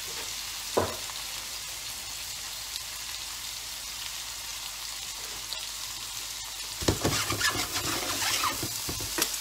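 Sliced beef steak topped with melting cheddar sizzling steadily in a frying pan on the hob. A single knock comes about a second in, and from about seven seconds metal tongs clatter and scrape against the pan.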